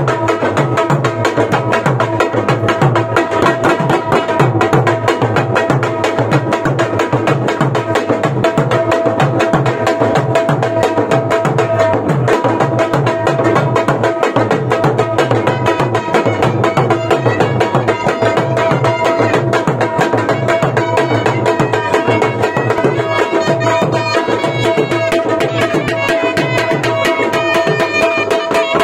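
Live dhol drum beaten with sticks in a quick, steady rhythm, with a shehnai holding a steady high note over it and its melody moving more near the end.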